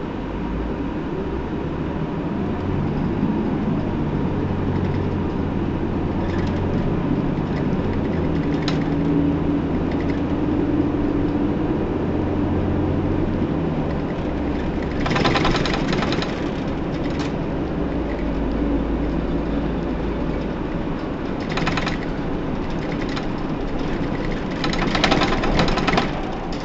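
Interior running sound of a Hino Blue Ribbon II city bus (PDG-KV234N2): the diesel engine runs with a shifting low note and then idles. Several short bursts of hiss come over it about halfway through and again near the end.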